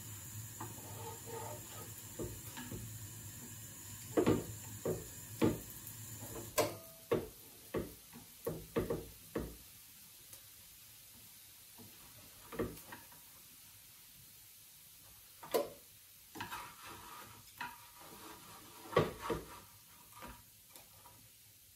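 Knocks, clicks and clatters of utensils and cookware being handled while cooking breakfast, coming in scattered clusters. A steady hiss cuts off about six and a half seconds in.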